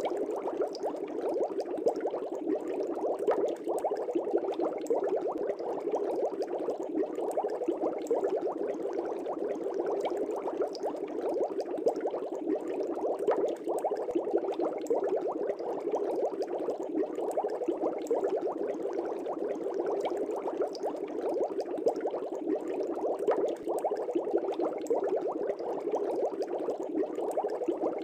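Aquarium air bubbles rising and breaking at the water surface in a fish tank: a steady, dense bubbling with many small pops.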